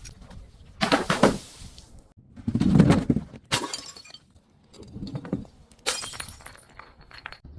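Glass bottles breaking, with about five separate crunching shatters a second or so apart. The loudest and heaviest comes about three seconds in.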